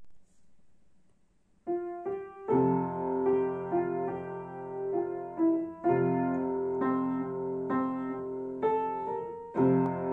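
Wooden upright piano playing a rigaudon, an old traditional dance tune, with both hands; the notes begin about a second and a half in, in phrases of chords under a melody.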